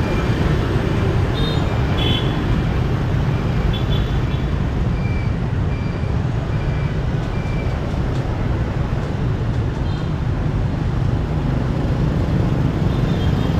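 Steady low rumble of wind on the microphone mixed with street traffic, with faint scattered higher sounds.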